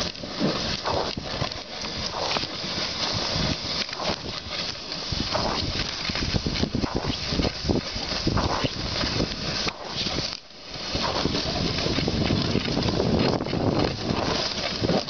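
Kick sled gliding over packed snow: a steady scraping of the runners with irregular knocks and crunches, dropping off briefly about ten seconds in.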